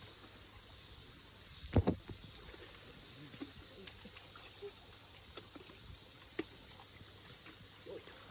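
Faint sloshing and lapping of shallow muddy water around people and an elephant standing in it, with a single dull thump about two seconds in.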